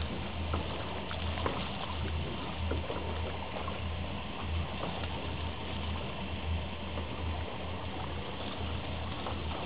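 Steady wash of sea water against a boat's hull, with a low, uneven throb underneath and a few faint clicks.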